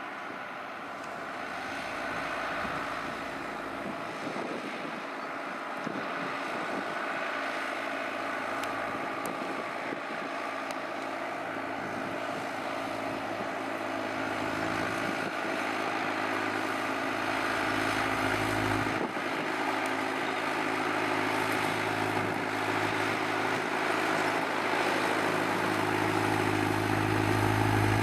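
New Holland T6010 tractor's diesel engine pulling a plough: a steady drone that grows gradually louder as the tractor comes nearer.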